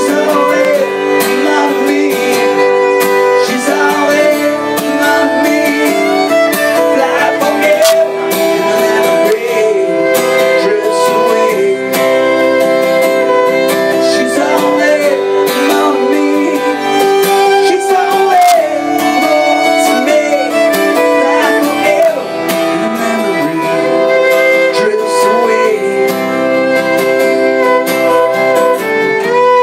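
Live fiddle and strummed acoustic guitar playing together, the fiddle carrying a wavering bowed melody over the guitar's chords.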